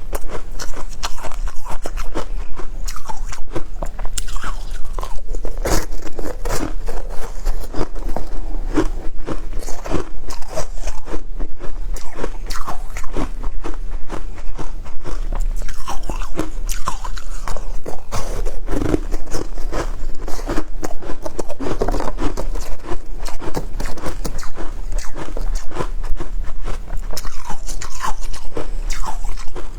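Close-up crunching and chewing of shaved ice: a continuous run of loud, irregular crackly crunches.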